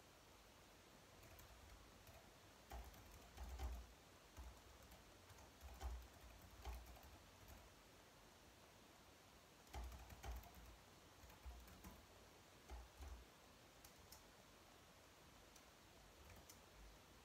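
Soft clicking of typing on a slim low-profile keyboard, in irregular runs of keystrokes with short pauses between.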